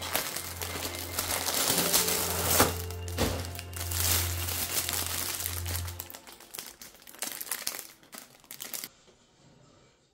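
Cardboard mailer box and its packaging crinkling and rustling as items are handled and pulled out, with a couple of sharper crackles. The handling noise dies down about six seconds in.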